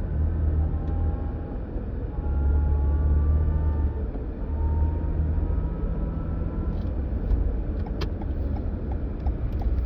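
2022 Toyota Highlander driving over a steady low rumble, with a thin whine that rises slowly in pitch, fades and comes back lower several times. The owner takes the whine for a fault at only 36k miles. A faint regular ticking starts about seven seconds in.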